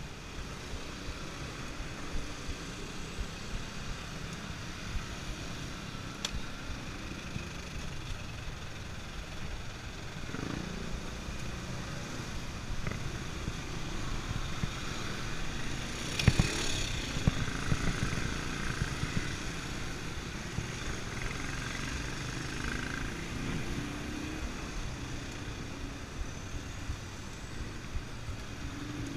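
Dense city road traffic heard from a bicycle moving among it: engines of cars, vans and motorcycles over a steady rush of noise, louder for a couple of seconds a little past halfway.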